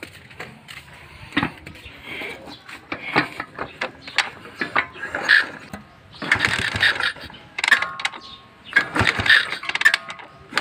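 Small motorcycle kick-started several times, the engine turning over without catching: its ignition gives no spark at the primary coil.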